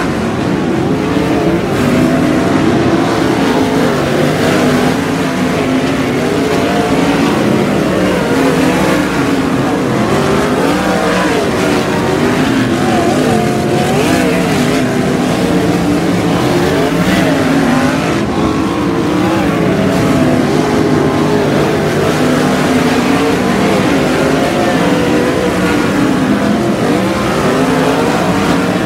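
A field of 360 sprint cars racing, several V8 engines running hard together, their pitches rising and falling as the cars pass and throttle through the turns.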